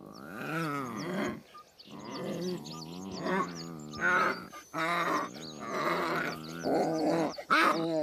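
Three-week-old lion cubs growling and snarling at being picked up by hand, a string of short calls about one a second.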